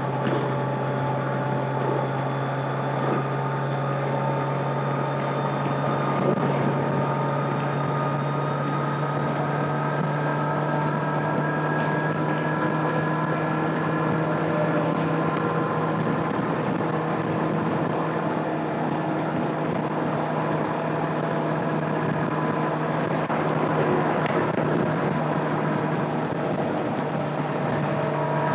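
A stock 2025 Kawasaki Z900's inline-four engine and exhaust cruising at steady revs, the pitch creeping slightly upward as it goes, with wind rushing over the microphone.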